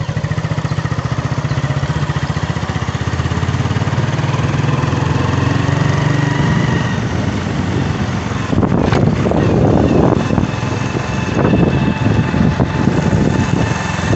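Small motorcycle engine running with an even, pulsing rumble. From about eight seconds in, wind buffets the microphone as the motorcycle rides along.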